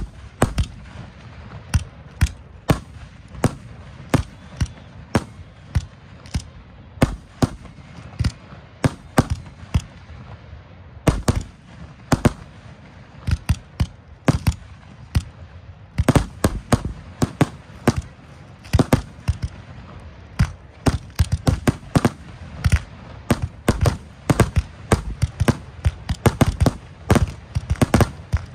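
Fireworks finale: aerial shells bursting one after another in sharp reports, several a second, coming thicker and faster from about halfway through.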